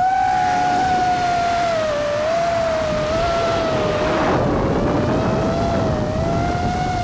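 FPV quadcopter motors whining at a steady high pitch that wavers up and down with the throttle, over rushing air noise that grows stronger around the middle.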